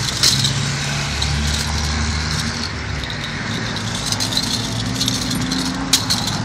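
A hollow plastic toy ball with holes rattling and knocking on a tiled floor as a small dog noses and pushes it, with a few sharp clicks. A steady low hum runs underneath.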